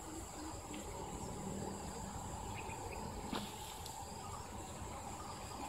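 Insects chirring in a steady, unbroken high drone, with one sharp click a little over three seconds in.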